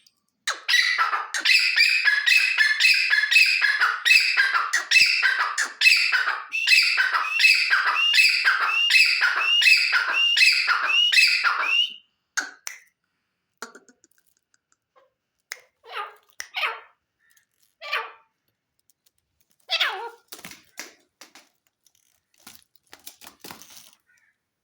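Teetar (francolin) calling: a fast, unbroken run of loud repeated call notes, each rising at its end, for about twelve seconds, then scattered single calls with pauses between them.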